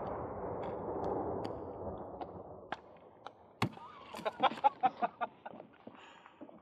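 The rumbling echo of a Tannerite explosion fading away over the first two seconds. Then come a few scattered sharp clicks and, about four seconds in, a short run of quick pitched calls lasting about a second.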